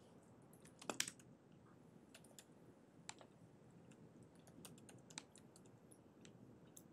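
Faint computer keyboard typing: scattered keystrokes at an uneven pace, with a louder pair of clicks about a second in.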